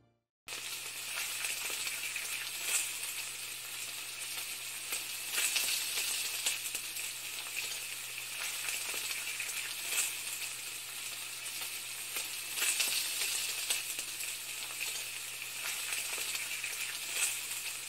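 Steady sizzling crackle with scattered pops over a faint low hum, starting about half a second in after a brief gap.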